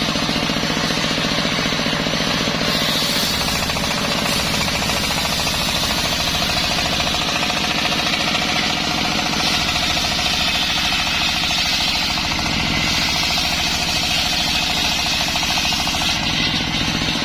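A motor-driven circular saw machine runs steadily with a rapid pulsing hum. Its blade rips through waru wood in two long passes, a hiss swelling from about three seconds in to nine seconds, and again from about thirteen to sixteen seconds.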